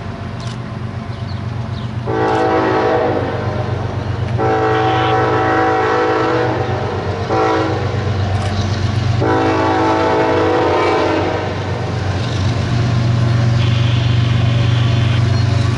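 Diesel freight locomotive air horn sounding the grade-crossing signal: long, long, short, long. Under it, the steady low running of the locomotive engines.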